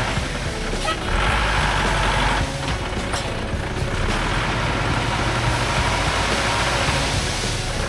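Heavy diesel engine of a work vehicle running steadily, its noise swelling for a second or so near the start.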